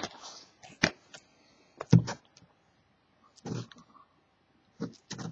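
Handling noises from a sealed trading-card box being turned over in the hands: a few scattered short clicks and knocks, the loudest about two seconds in.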